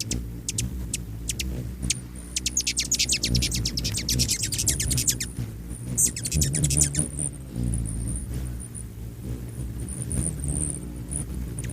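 A hummingbird's wings make a low, fluttering hum. Over it come sharp, high chip calls: a few spaced chips, then a rapid run of them for a few seconds. Thin, high squeaks follow later.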